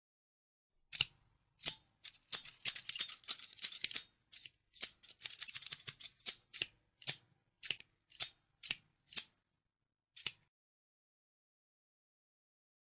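Scissors snipping: single crisp cuts, then quick runs of rapid snips, then slower single cuts about twice a second that stop about ten seconds in.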